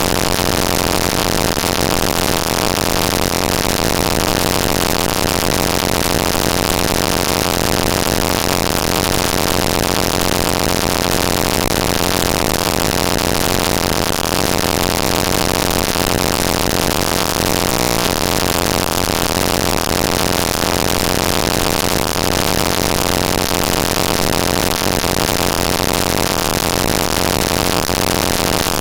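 Data-bending noise: tshark network packet-capture text played as raw audio samples. It is a dense, steady buzzing hiss over a stack of steady droning tones, with a brief shift in the low drone about eighteen seconds in.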